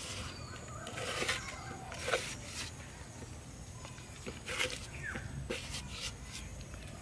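Wet squelching and irregular smacks of a hand kneading a watery white paste inside a plastic cup. A single short falling bird chirp comes about five seconds in.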